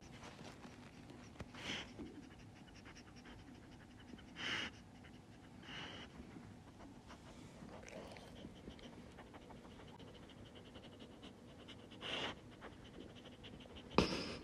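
A large dog breathing and panting close to the microphone, with several short, louder breaths spread through and the loudest near the end.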